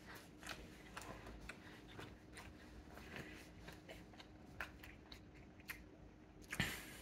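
A person biting and chewing a slice of pulled pork barbecue pizza, with faint, irregular crunching and mouth clicks and one louder snap near the end.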